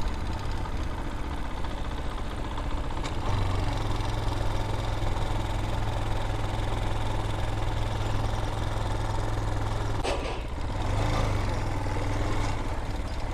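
Vitacci Raven 250 dirt bike's air-cooled single-cylinder engine running steadily at low revs while riding, its drone getting a little stronger about three seconds in. A single brief knock about ten seconds in.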